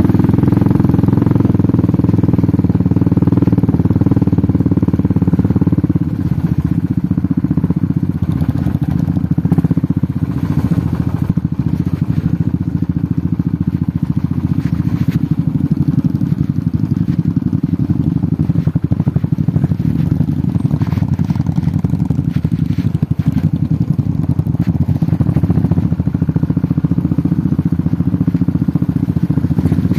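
Royal Enfield motorcycle engine running steadily under way, heard from the rider's own bike with other motorcycles close ahead; the engine note eases slightly about six seconds in.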